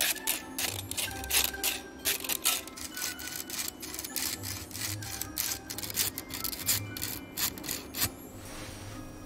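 Quick, repeated rasping strokes of a wire-mesh strainer scraped back and forth, a foley imitation of a hand saw cutting a wooden board; the strokes stop about eight seconds in. Soft background music underneath.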